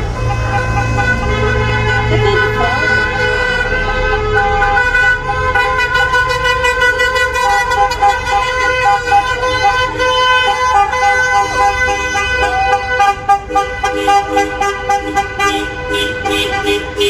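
Many car horns honking at once, several held tones at different pitches overlapping, with short rapid toots breaking in more and more toward the end.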